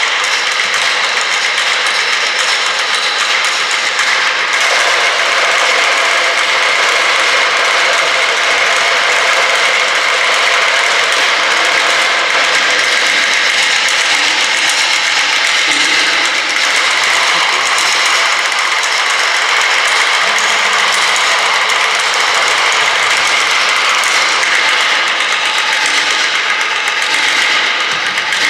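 Contemporary percussion trio playing objects on tabletop setups, making a dense, steady wash of noise with a few faint held tones running through it.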